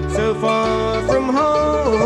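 Bluegrass band playing an instrumental break: banjo, guitar, mandolin and bass, with a held lead line that slides between notes over a steady bass.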